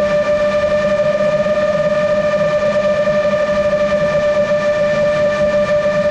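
GEPRC MOZ-7 long-range FPV quadcopter's motors and propellers in cruise flight, a steady whine holding one pitch over a rushing noise, heard from the onboard camera.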